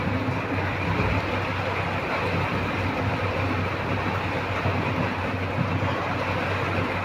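Steady background noise with a low hum, even throughout and without distinct events.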